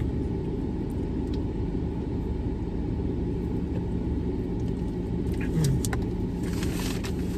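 Car engine idling, a steady low rumble heard from inside the cabin, with a brief rustle of a paper food wrapper near the end.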